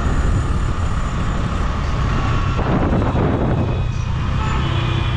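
Road and traffic noise from riding on a motor scooter through city streets: a loud, steady low rumble of engine and moving air.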